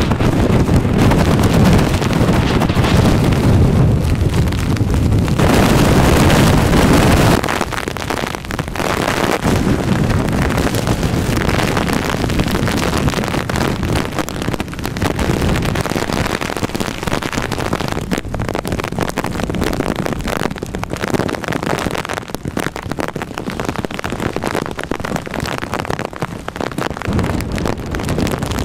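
Hurricane-force wind gusting and driving heavy rain, buffeting the microphone with a loud, low rumble. The rumble is heaviest for the first seven seconds, then drops suddenly to a steadier, gusty rush.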